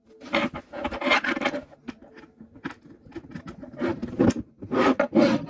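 Rubbing and scraping of something being handled, in irregular bursts with a few sharp clicks, loudest near the end.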